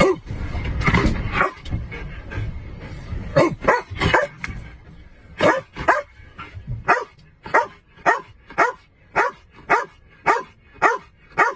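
A dog barking over and over, settling into a steady run of about two barks a second in the second half. A low rumbling noise fills the first second or two.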